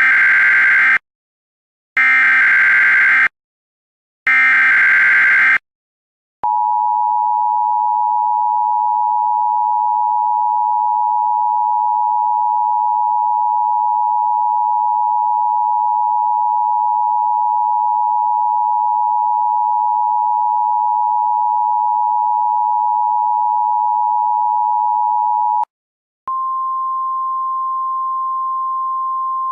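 Emergency Alert System tones: three short bursts of screechy digital header data, then the steady two-tone EAS attention signal held for about 19 seconds. After a brief break comes a single, slightly higher and quieter steady tone, the NOAA Weather Radio alert tone.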